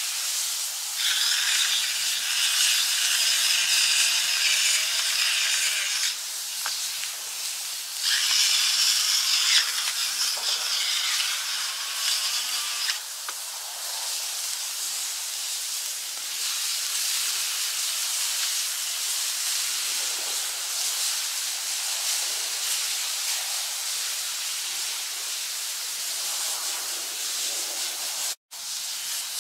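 Skirt steak sizzling in cast iron skillets over an open log fire: a steady hiss that swells louder about a second in and again around eight seconds, with a few faint cracks.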